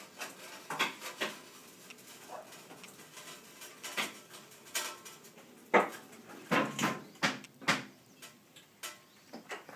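Four-post car lift lowering a car, with irregular sharp metal clanks and knocks, the loudest a little past halfway through.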